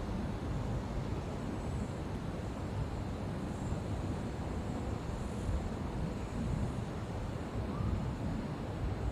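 Steady low rumble of background noise, unchanging throughout, with no distinct events.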